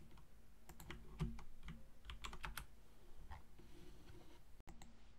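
Computer keyboard keys being tapped, a scatter of separate clicks over the first three and a half seconds, then it goes quiet.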